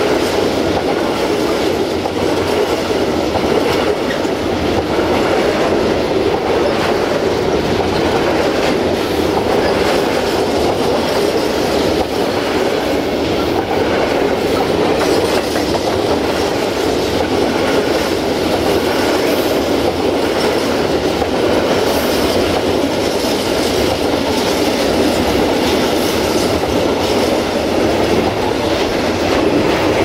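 Freight train's covered wagons rolling past close by: a steady, loud rolling noise with the clickety-clack of the wheels over the rail joints.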